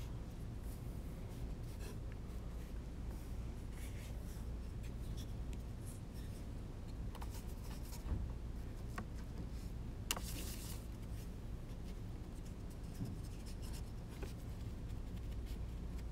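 Faint scratchy strokes of a watercolour paintbrush on paper over a steady low room hum, with a louder brief scrape about ten seconds in.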